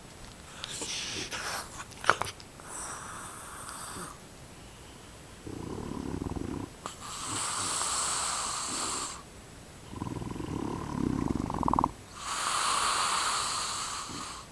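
Bulldog snoring: each breath is a low rattling snore followed by a longer wheezy hiss, repeating about every five seconds.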